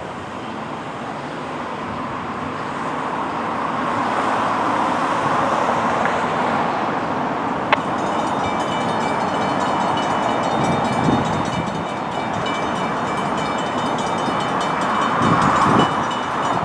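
NJ Transit commuter train running at a station: a broad rail noise builds over several seconds, then a sharp click about eight seconds in. After it, several steady high-pitched tones ring over the noise, with low rumbles near the end.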